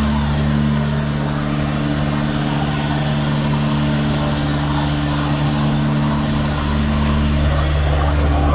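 High-pressure sewer jetter running steadily, its engine and pump giving a constant hum over a rushing noise while the hose is jetting water through the clogged drain line.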